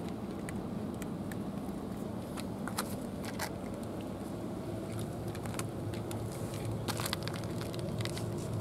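Two cats crunching dry kibble, irregular crisp clicks of chewing, heaviest about three seconds in and again near seven seconds, over a steady low rumble.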